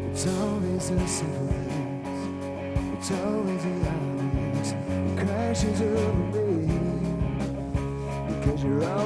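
Live rock band playing: electric guitars, bass and a drum kit with regular cymbal and drum hits, and a melody line wavering in pitch over them.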